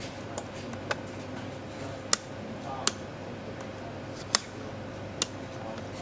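About six sharp clicks, spaced irregularly, as tactile push-button switches on a breadboard test circuit are pressed, over a steady low hum.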